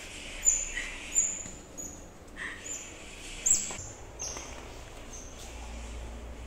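Pet otters giving a run of short, high-pitched squeaky chirps, each dropping slightly in pitch, roughly one a second.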